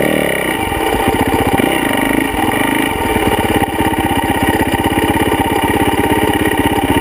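Yamaha YZ450F's single-cylinder four-stroke engine running close to the microphone. Its speed rises and falls a little twice in the first three seconds, then it settles into a steady idle.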